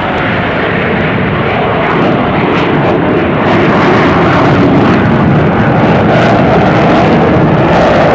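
Jet noise from four USAF Thunderbirds F-16 Fighting Falcons flying past in formation: a steady rushing roar that grows louder over the first few seconds and then holds.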